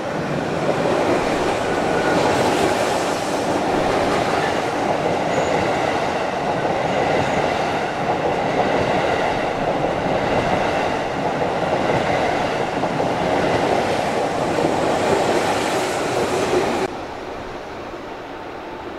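JR East 215 series double-decker electric train passing close by, a loud steady running noise of wheels on rails that drops away sharply near the end.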